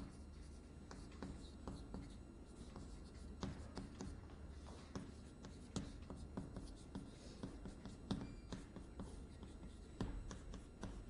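Chalk writing on a blackboard: irregular short taps and scratches as characters are written, over a faint low hum.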